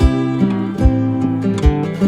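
Background music: acoustic guitar over a steady beat.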